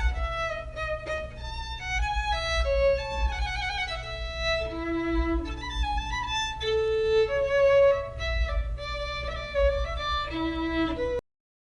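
Bowed violin playing a melody of held notes that move up and down in pitch; it stops abruptly near the end.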